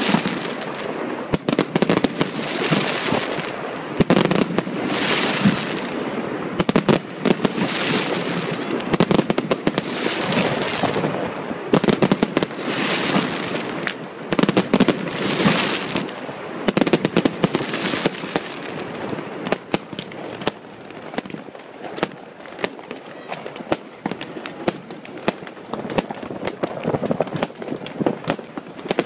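Fireworks display: a rapid, dense run of bangs and crackling as shells burst overhead, thinning to scattered bangs over roughly the last third.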